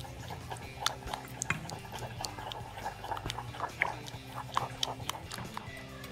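A wooden spoon stirring a chocolate sauce of butter, water and chocolate powder in a pan, scraping and clicking irregularly against the pan.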